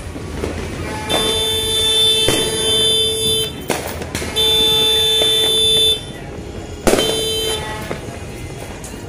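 A horn sounding three long blasts on one steady note, the first about two and a half seconds long and the last short. A few sharp bangs fall between them, the loudest just before the last blast.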